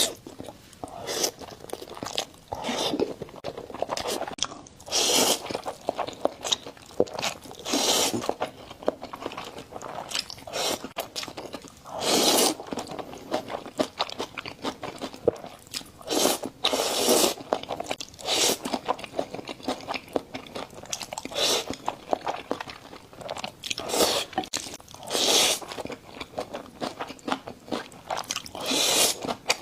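Close-miked eating of spicy noodles: steady chewing and crunchy bites, with longer, louder mouthfuls every few seconds.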